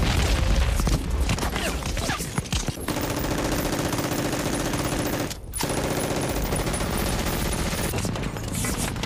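Battle sound from a war film: dense machine-gun fire in long, very rapid bursts, with a heavy low rumble in the first second and a short break about halfway through.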